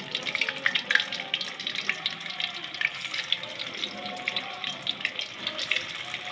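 Tapioca-starch-coated tofu pieces deep-frying in hot oil in a wok: a steady sizzle with frequent small crackles and pops.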